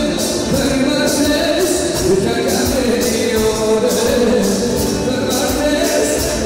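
Live Albanian wedding music: a man singing into a microphone over a band's melody and a steady beat of about two strokes a second.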